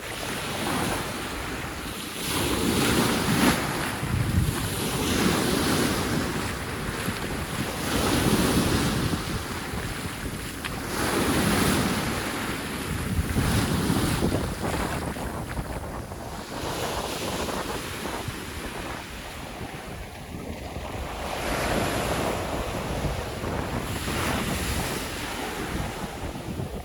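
Sea waves breaking and washing up a sandy beach, the surf swelling and ebbing every few seconds, with wind rumbling on the microphone.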